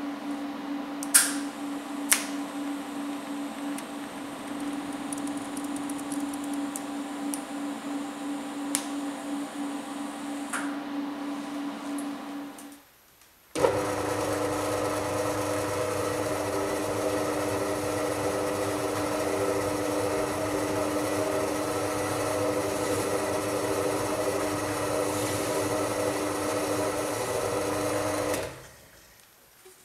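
A pillar drill spinning a wire or abrasive wheel in its chuck. It starts about a third of the way in, runs steadily with a motor hum for about fifteen seconds, and cuts off near the end. Before it, a quieter steady hum with two sharp clicks.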